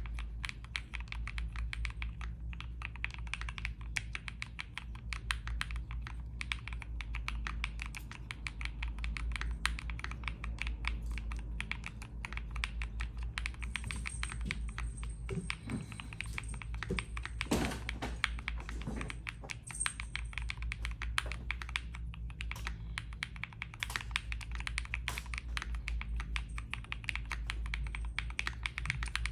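Continuous fast typing on a Piggy60 60% mechanical keyboard with Corsa switches and ePBT keycaps: a dense stream of keystroke clicks, with a few heavier thunks between about 15 and 19 seconds in.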